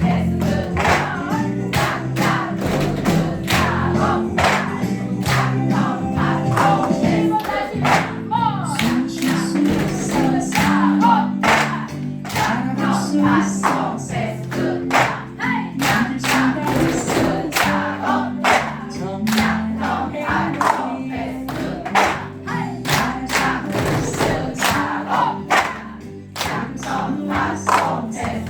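A pop song with singing plays while plastic cups are tapped and struck on a table in a steady rhythm: cup-tapping (컵타) percussion played along to the music.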